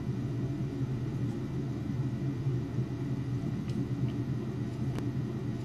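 A steady low hum, with a faint click about five seconds in.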